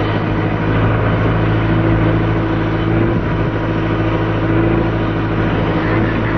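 The engine of the loader tipping a load of horse manure into an open convertible, running steadily at an even pitch.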